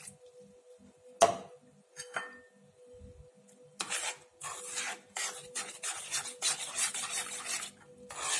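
A sharp knock about a second in, then a metal spoon scraping against a saucepan as it stirs dry powder into water: a run of rasping strokes, about two a second, from about four seconds in.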